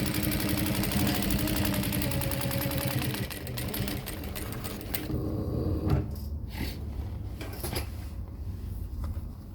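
Juki DDL-8700 industrial lockstitch sewing machine on its servo motor, stitching through 2–3 oz saddle skirting leather with a fast, even needle rhythm and a steady motor hum. It stops about five seconds in, followed by a few light clicks and handling noises.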